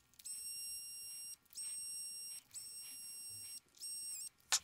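Electric precision screwdriver's small motor whining in four short high-pitched runs as it backs out the M2 screws of a 3D-printed watch case; the last run drops in pitch as it stops. A sharp click near the end.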